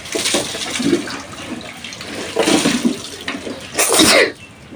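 Rustling and handling noises from toys and their packaging, coming in a few short bursts.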